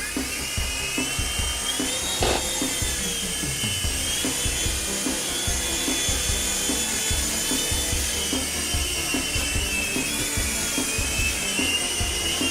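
F101 mini RC helicopter's small electric motors whining high in flight, the pitch rising and dipping with the throttle, then cutting off at the end. Background music with a steady beat plays underneath.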